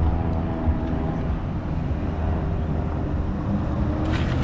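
Steady low engine rumble with a faint hum of tones over it, and a small knock about a second in.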